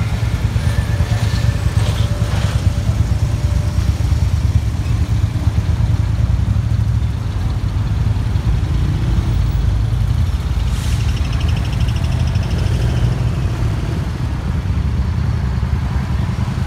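Honda Super Cub motorcycles on the move: a steady, even low rumble of small engines and road travel.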